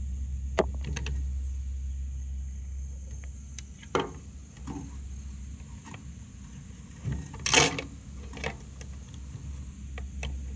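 Scattered clicks, taps and knocks from a fuel pump module and its fuel-level float being handled and fitted, the loudest a short scrape about seven and a half seconds in. A steady low hum runs underneath.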